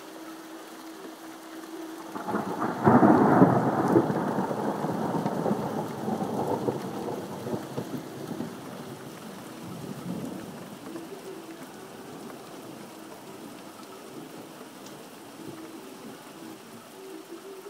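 A thunderclap about two seconds in, loudest at first and then rumbling away over several seconds. Hail and rain fall steadily throughout.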